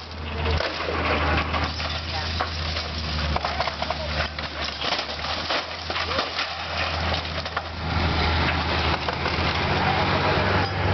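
Demolition: a heavy machine's engine runs steadily under repeated cracking and crunching of splintering wood and breaking debris as the building is torn down. The crunching is densest in the middle and eases near the end while the engine keeps on.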